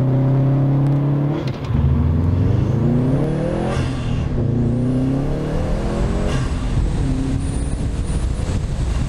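Subaru WRX STI's turbocharged 2.5-litre flat-four, fitted with a Cobb intake and Accessport tune, accelerating through the gears: the engine note holds, then climbs twice, with a short rush of air from the bypass valve at the shift about four seconds in. The turbo is making only about 15 psi of boost instead of the 18 it should.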